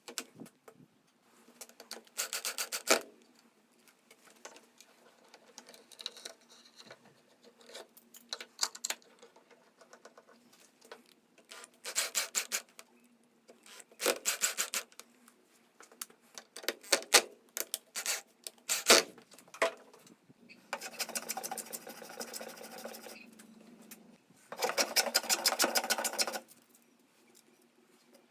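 Hand tools working pine: several bursts of quick back-and-forth rubbing or rasping strokes on the wood, with scattered taps and a couple of sharp knocks in between.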